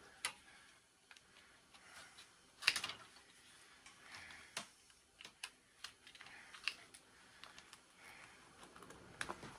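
Irregular faint clicks and snips of hand snips cutting a ribbon cable free inside a computer case, with soft rustling of the cable and hands between the clicks; the sharpest snip comes a little under three seconds in.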